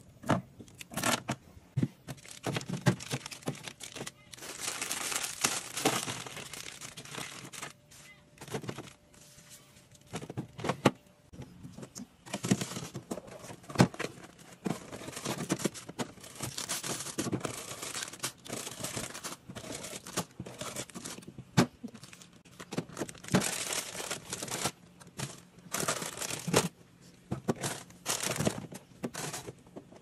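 Plastic snack packaging crinkling and rustling as items are handled and packed into a fridge, broken by many short clicks and knocks of bottles, cans, cartons and plastic shelf parts being set down and moved.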